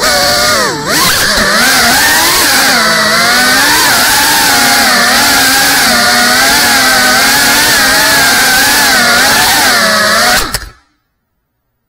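Brushless motors and propellers of a GEPRC CineLog35 3.5-inch cinewhoop FPV drone buzzing in flight, the pitch wavering up and down with the throttle and dipping sharply about a second in. The sound cuts off suddenly near the end.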